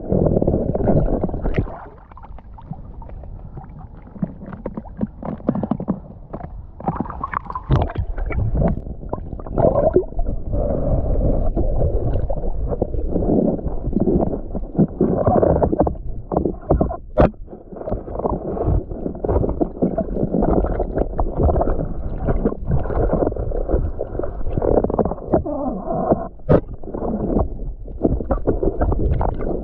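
Muffled water sloshing and gurgling close to the camera, with a few sharp clicks.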